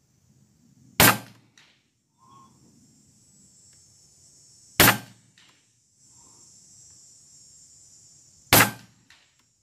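Huben K1 semi-automatic PCP air rifle firing 28.5-grain slugs: three sharp shots about four seconds apart, each followed about half a second later by a faint tick.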